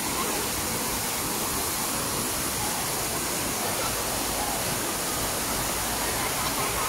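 Waterfall pouring steadily into its pool: an even, unbroken rush of falling water.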